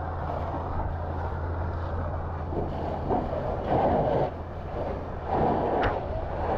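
A steady low engine hum, with two louder rushing swells of noise about three and five seconds in and a brief sharp click near the end.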